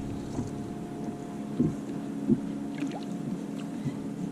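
Steady low electric hum of a bass boat's trolling motor, with a few soft knocks as a hooked bass is reeled in.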